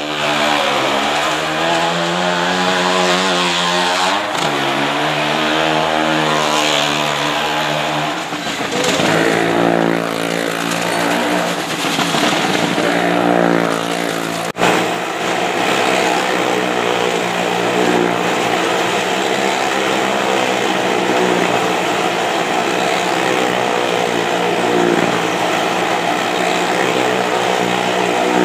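Motorcycle engines revving inside a wooden wall-of-death drum, their pitch rising and falling as riders climb and circle the wall. After an abrupt break about halfway through, the engines run in a steadier, denser mix.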